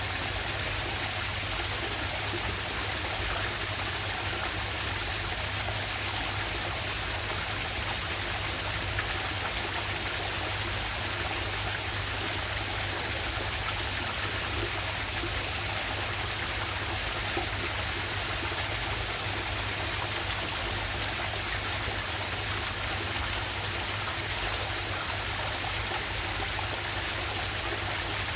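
Waterfall on a river: water rushing and splashing steadily.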